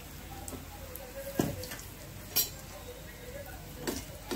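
Besan bhaji deep-frying in hot oil in a kadhai, a steady faint sizzle. Four sharp clinks of metal spoons against the pan and bowl cut through it, the two loudest in the first half.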